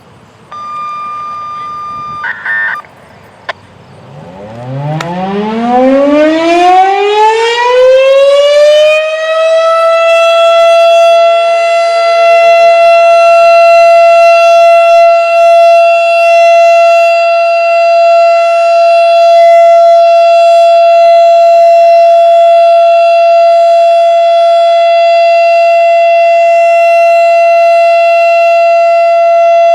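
Darley STH-10 electromechanical outdoor warning siren winding up about four seconds in, its pitch rising over some six seconds, then holding one steady tone: the full alert (steady) signal of a siren test.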